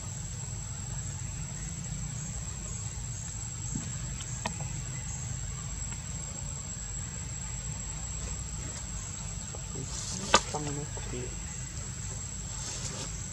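Insects chirring in one steady high tone over a low rumble, with a faint click about four seconds in and a sharp, loud click about ten seconds in.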